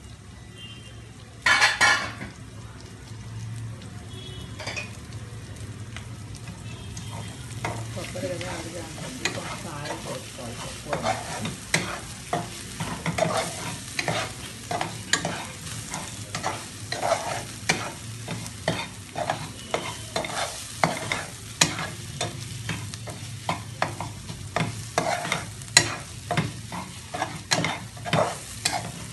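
A steel spatula scraping and stirring food in a metal pan while it sizzles in oil, in quick, irregular strokes that grow busier after the first several seconds. A loud metal clank comes just under two seconds in.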